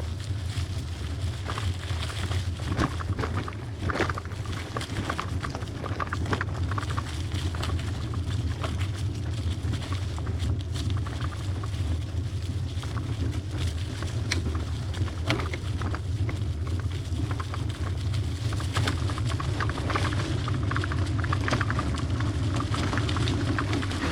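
Trek hybrid bicycle riding along a dirt trail: a steady low rumble of tyre and wind noise with frequent small rattles and knocks as it goes over bumps.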